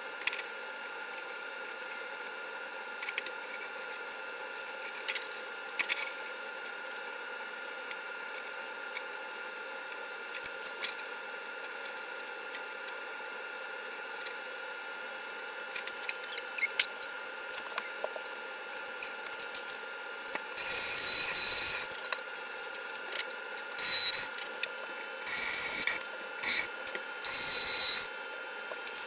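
Light clicks and taps of the metal hanger track being handled and set against the wall, then a cordless drill run in about five short bursts, a steady high whine each time, driving screws through the top hanger track into the wall.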